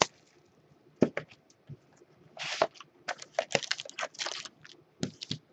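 Hands unwrapping and opening a cardboard box of trading cards: irregular sharp clicks, crinkles and short rustles of packaging, busiest in the second half.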